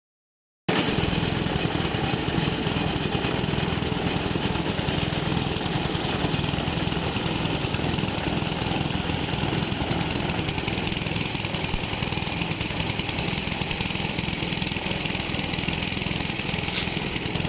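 A construction machine's engine running steadily.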